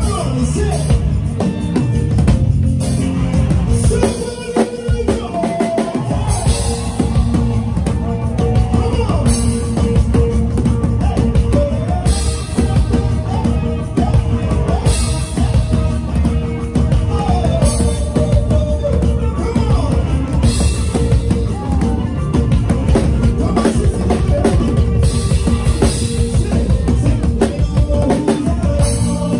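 Live church praise band playing an upbeat groove, with drum kit and bass carrying a steady beat and melodic lines on top. The bass end drops out briefly about four seconds in, then the full groove returns.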